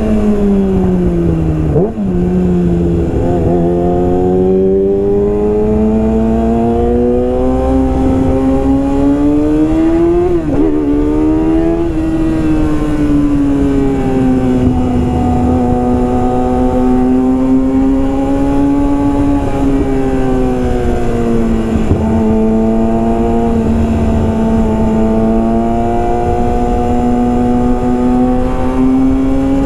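Yamaha R6 inline-four engine through a full Yoshimura exhaust system, ridden on the move. The pitch falls briefly, climbs steadily under acceleration, and drops slightly with a gear change about ten seconds in. It then holds a fairly steady high pitch with gentle rises and dips, climbing again near the end.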